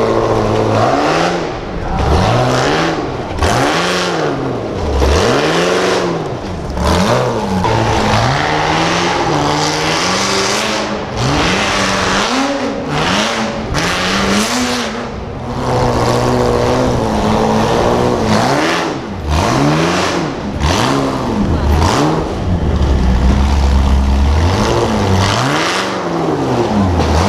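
Off-road competition truck's engine revving hard again and again, the pitch sweeping up and dropping back every second or two as the throttle is blipped and released.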